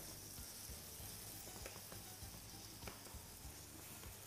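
Meat and chopped vegetables sizzling softly in a frying pan, with a few light knocks of a wooden spatula as they are stirred.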